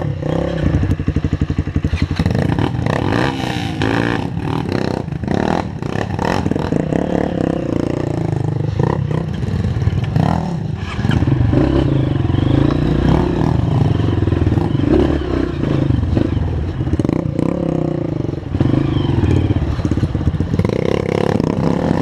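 Honda CRF230 trail bike's single-cylinder four-stroke engine pulling at low revs through a slow, technical climb, the revs rising and falling with the throttle. Clatter and knocks from the bike working over rocks and roots, most of them in the first few seconds.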